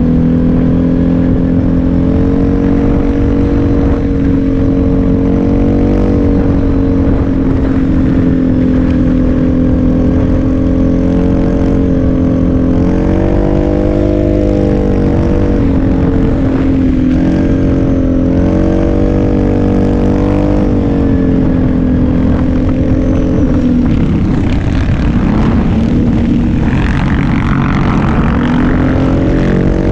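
Kawasaki KFX700 ATV's V-twin engine running under throttle, its pitch rising and falling with the rider's throttle. A little past halfway the revs drop and a rougher, noisier rush takes over for a few seconds, then the engine pulls back up near the end.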